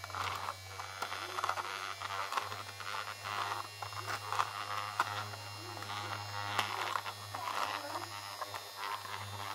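Small electric motor of a 9-volt battery-powered, 3D-printed mini vacuum running with a steady hum while its nozzle sucks up fine grains from a plastic lid, with scattered faint clicks.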